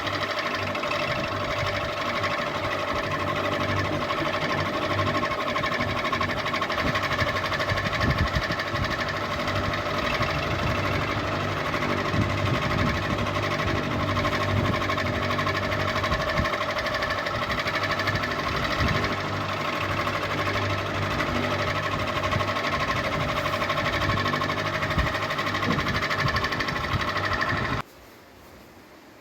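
Ceiling fan running with a steady whine at several pitches over a fast, uneven mechanical rattle; the sound cuts off suddenly near the end.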